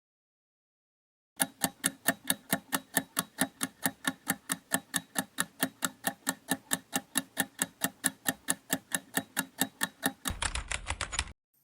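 Clock-like ticking of a quiz countdown timer sound effect, about four even ticks a second, starting about a second and a half in. Near the end it gives way to a brief, louder rattling sound.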